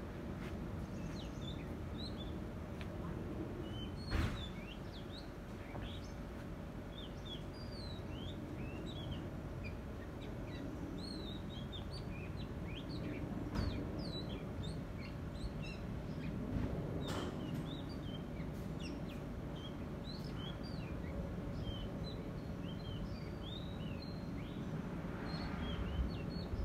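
Small birds chirping continually, many short quick calls overlapping, over a steady low rumble. A few brief sharp knocks come through, the loudest about four seconds in.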